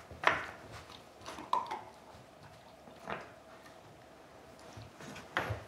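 Wooden knobs of a Nina Ottosson Dog Turbo puzzle knocking and sliding in their channels as a dog pushes them with its nose: several sharp wooden clacks, the loudest just after the start, with a quieter stretch in the middle.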